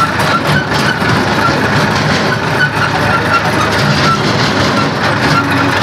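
Massey Ferguson 1035 tractor's three-cylinder diesel engine running steadily under way, heard loud from the driver's seat.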